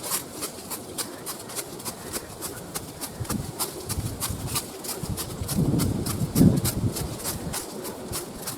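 Footsteps of hikers climbing a steep trail, a steady run of quick sharp steps about four a second. A louder low rumble on the microphone swells about six seconds in.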